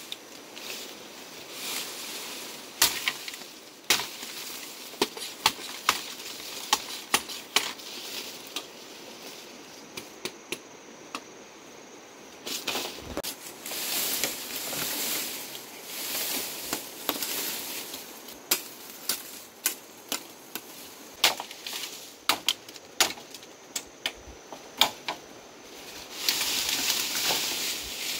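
Machete chopping bamboo: sharp, irregular strikes, often several in quick succession, with rustling of leaves and stems between them and a longer stretch of rustling near the end.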